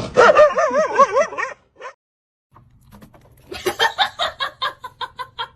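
A dog whining in a wavering, howl-like tone, then, after a short gap, a quick run of short yips, about five a second.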